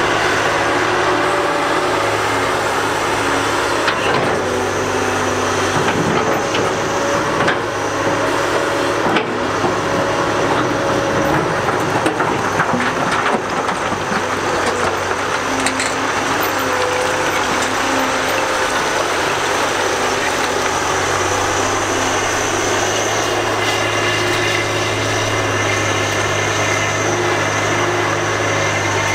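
Heavy excavator's diesel engine running steadily under load as it works broken rock, with several sharp knocks of rock in the first half.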